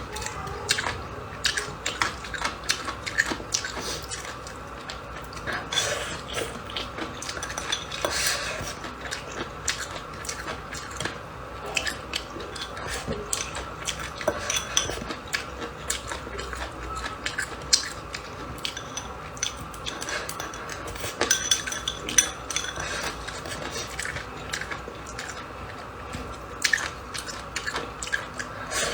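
Eating at a table: utensils clicking and clinking against dishes, many times at an irregular pace, with chewing and biting.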